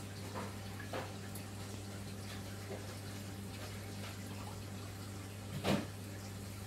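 Aquarium filter running: a steady low hum from its pump, with water trickling and a few soft splashes or plops, the loudest one near the end.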